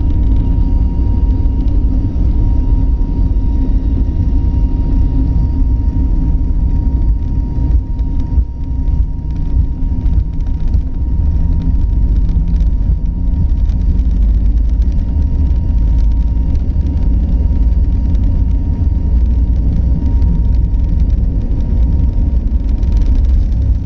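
Airliner cabin noise: a loud, steady low rumble of the engines and airflow, with a faint steady high whine over it.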